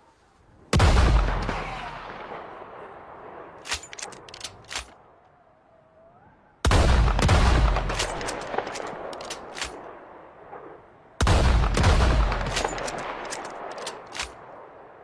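Sawed-off shotgun fired three times, evenly spaced about five seconds apart, each blast trailing off in a long fading echo. Each shot is followed by a few sharp clicks.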